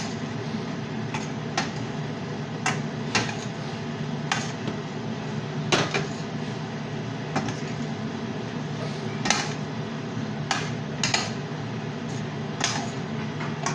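A metal utensil tapping and scraping a stainless steel frying pan while stir-frying chow mein noodles, in irregular clinks about once a second, over a steady low hum.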